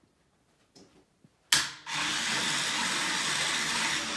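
A sharp click, then a toy car wash runs with a steady, even whirring rush for about two and a half seconds.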